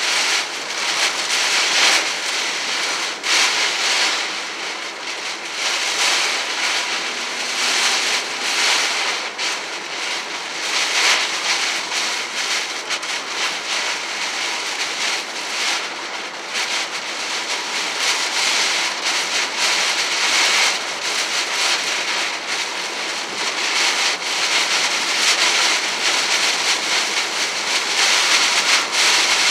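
Heavy rain pelting a moving car's windshield and roof, heard from inside the cabin, mixed with tyre noise on the wet road. The hiss swells and eases every second or two.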